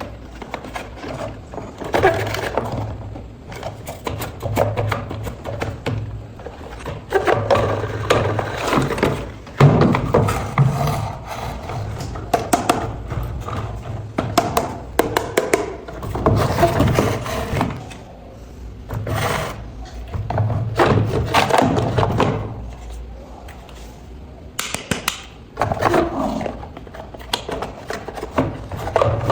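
Handling noises from a toy unboxing: irregular rustling, clicks and knocks that come and go in bursts.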